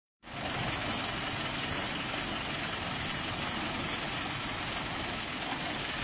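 A tall waterfall pouring off a cliff onto a road, making a steady rushing noise, mixed with the low running of vehicle engines.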